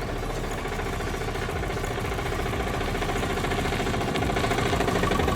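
Small engine idling with a fast, even chugging pulse, growing slowly louder.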